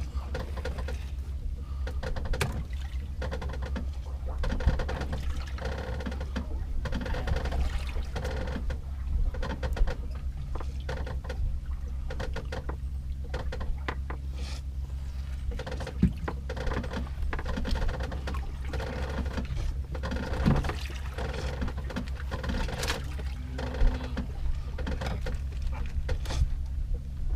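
Fishing boat's engine running steadily with a slow pulsing beat about once a second, water sloshing, and scattered knocks and clicks on deck.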